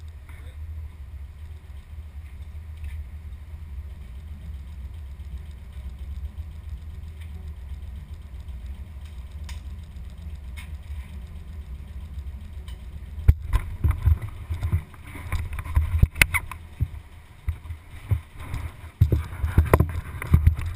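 Steady low rumble of a passenger train carriage in motion, heard from inside. About two thirds of the way in, a sharp knock starts a run of irregular knocks and rattles as a mountain bike is moved about on the carriage floor.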